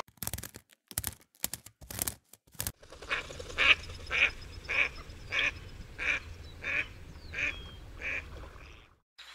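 A bird calling about ten times in a steady series, roughly two short calls a second, after a few short sharp clicks in the first three seconds.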